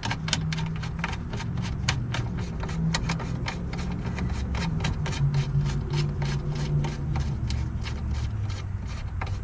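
Hand wrench turning a 10 mm window-regulator bolt inside a car door: a run of small metallic clicks, about four a second, with rubbing and scraping, over a steady low hum.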